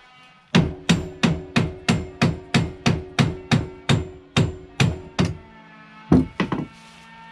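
Hammer blows knocking a 1988 Yamaha YFM225 Moto4's die-cast front brake hub loose: about fifteen quick strikes at roughly three a second, each with a metallic ring. A few more blows follow near the end.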